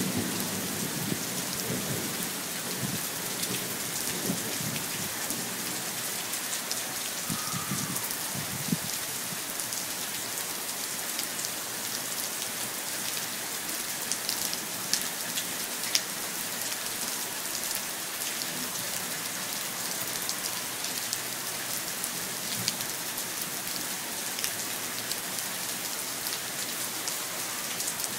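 Steady heavy rain hissing on pavement and nearby surfaces, with scattered sharper drop taps. Thunder rumbles low through roughly the first eight seconds, then dies away, leaving only the rain.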